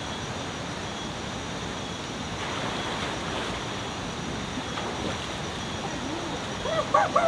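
Shallow river rushing over rocks in a steady wash. A person's voice cuts in briefly near the end.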